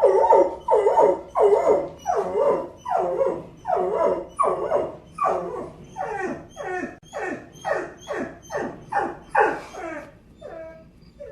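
A dog giving a rapid, even series of yelping barks, each call sliding down in pitch, about two or three a second, growing fainter and sparser near the end.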